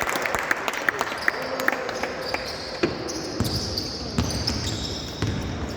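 Basketball game in a gym: a ball bouncing on the court with low thuds in the second half, and quick, short high sneaker squeaks in the first half, over faint background voices.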